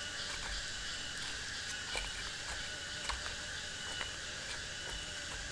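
A steady chorus of insects and frogs, with a thin high drone held throughout. A few soft clicks sound about two, three and four seconds in as a knife presses diced vegetables down into a cabbage leaf.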